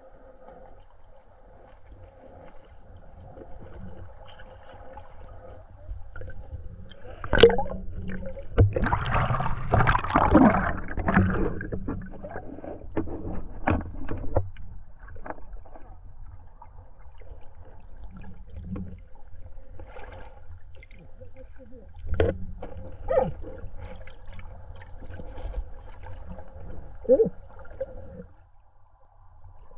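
Muffled underwater sound picked up by a camera held under the surface of a shallow stream: gurgling, sloshing water with scattered knocks. The loudest part is a rush of noise and knocks from about seven to fifteen seconds in, and a few more knocks come later.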